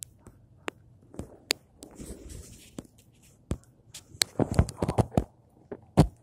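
Footsteps and handling noise: scattered sharp clicks and taps, turning into a busier run of soft thumps and rustling about two-thirds of the way through.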